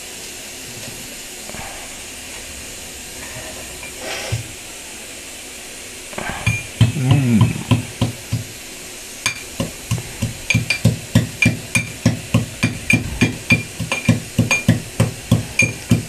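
Steel pestle pounding ginger in a small steel mortar: a few knocks a little past six seconds in, then from about nine seconds a steady beat of about three strikes a second, each with a short metallic ring. Before the pounding, the gas burner under the pan hisses steadily.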